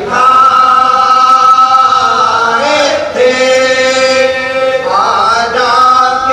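A man chanting a religious recitation in three long, drawn-out notes, each held steady for a second or more.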